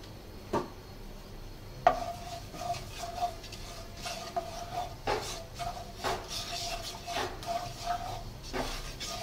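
Wooden spatula stirring panch phoron seeds in hot mustard oil in a non-stick wok, knocking and scraping against the pan, the loudest knock about two seconds in. From then on a short high tone repeats on and off.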